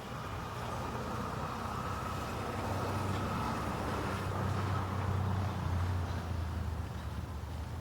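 A motor vehicle passing: a low engine rumble with road noise swells to its loudest about five to six seconds in, then eases off.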